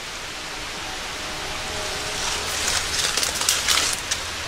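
Footsteps crunching through dry leaves and forest litter, irregular crackles from about two seconds in, over a steady hiss.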